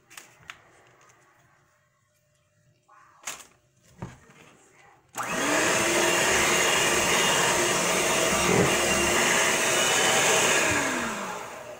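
Electric hand mixer beating cupcake batter: after a few light knocks it switches on about five seconds in, spins up and whirs steadily, then winds down near the end.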